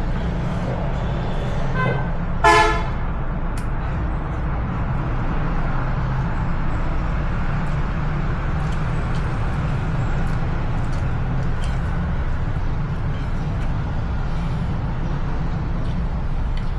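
A steady low rumble throughout, with a short vehicle horn toot about two and a half seconds in and a fainter toot just before it.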